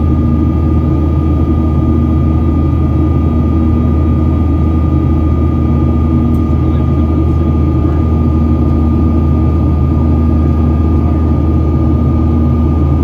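Boeing 737-800 cabin noise in the climb, heard from a seat over the wing: the steady deep rumble of the CFM56-7B turbofan engines and airflow, with a thin steady whine above it.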